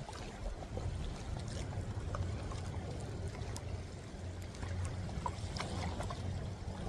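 Water sloshing and trickling, with scattered small clicks and knocks over a steady low rumble.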